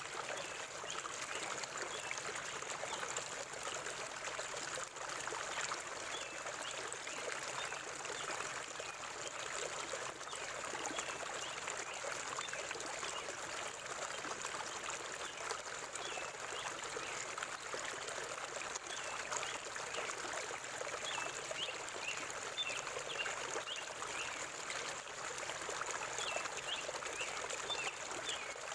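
River water flowing and trickling steadily over stones, with small gurgles and splashes throughout.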